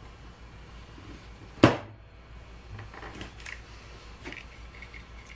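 A single sharp clack of a hand tool against the wooden workbench about a second and a half in, followed by a few faint clicks of small parts being handled.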